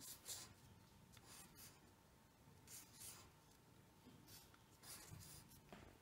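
Faint scratching of a pen drawing on paper: a series of short strokes, roughly one or two a second.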